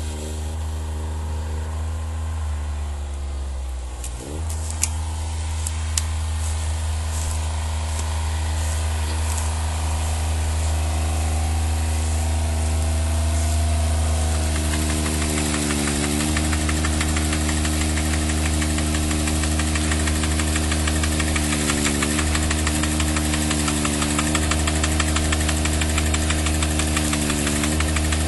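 Engine of an Ebeaver small tracked, remote-controlled harvester running steadily, with a brief dip in pitch about four seconds in and a few sharp clicks just after. From about halfway it runs fuller under load, its pitch sagging briefly every five or six seconds as the crane works.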